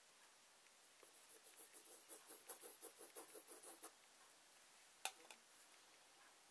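Faint pencil strokes on paper: a quick run of short scratching strokes, several a second, for about three seconds, then a single sharp click about five seconds in.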